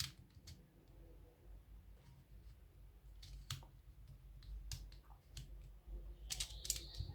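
Faint, scattered plastic clicks of a YJ Petal Pyraminx twisty puzzle being turned, its layers clicking into place at the end of each turn, with a few clicks close together near the end.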